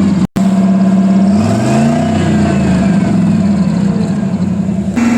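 Carbureted engine of a 41-year-old truck running after a Seafoam hot soak, revved up once and settling back, as the cleaner burns off. The sound cuts out briefly near the start and the engine note changes to a steadier, slightly higher hum near the end.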